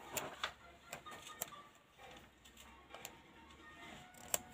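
Light clicks and taps of fingers handling a paper sticker sheet, peeling off a sticker and pressing it onto a page. The clicks are scattered and irregular, with the sharpest one just before the end, over faint background music.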